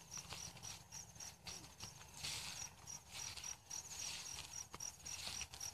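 An insect chirping in a high-pitched pulse that repeats about five times a second, pausing briefly around two seconds in, with faint scattered knocks and rustles.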